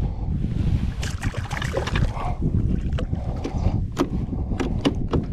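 Wind rumbling on the microphone over water splashing beside a kayak as a small hooked redfish thrashes at the surface, with a few short, sharp splashes near the end.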